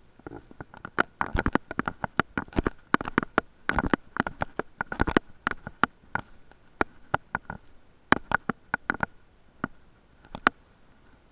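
Irregular clicks and taps coming in quick runs with short pauses, with a faint high hum under the busiest stretches: handling or rattle noise on the camera itself.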